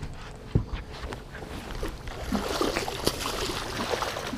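Water splashing and sloshing as a hooked musky thrashes at the surface beside the boat and is brought toward the landing net, louder from about a second and a half in.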